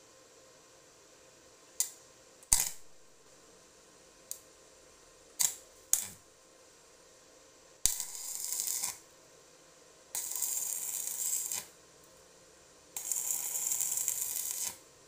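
Several sharp clicks and knocks, then three hissing bursts of one to two seconds each, with short pauses between them.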